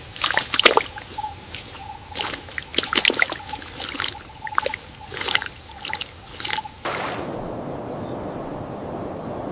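Water splashing in short, irregular bursts over a faint steady high tone. About seven seconds in it switches abruptly to an even rush of running water.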